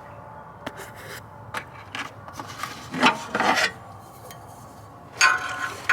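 Metal hand tools clinking and scraping: scattered light clicks, with two louder rattling scrapes about three seconds in and near the end, as a wrench is picked out and handled.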